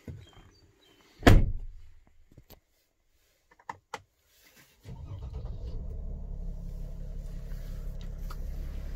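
A loud single thump about a second in and a few faint clicks, then the Mercedes-Benz Sprinter 519 CDI's V6 diesel engine starts about five seconds in and runs at a steady idle.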